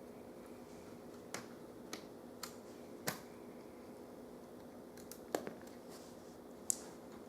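Scattered sharp plastic clicks and taps, about nine of them and irregularly spaced, as a laptop's screen assembly and small parts are handled during reassembly. A faint steady hum runs underneath.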